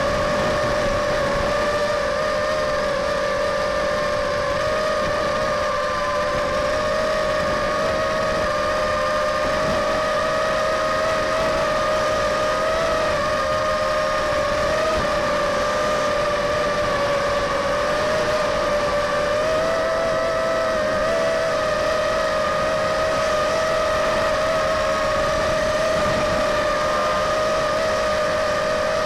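A 250-size quadcopter's four brushless motors and propellers whining steadily in flight, heard from on board. The pitch wavers slightly up and down with throttle.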